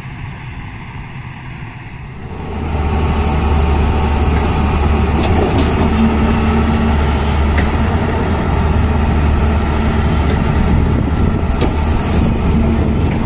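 Hyundai 215 Smart excavator's diesel engine running steadily while the boom and arm move, a deep even drone that becomes louder about two and a half seconds in.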